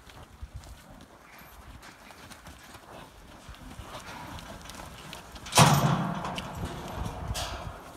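Cattle shuffling and stepping on the dirt floor of a stockyard pen, hooves knocking softly. About five and a half seconds in, a sudden loud sound with a low pitched core rises above them and fades over about two seconds.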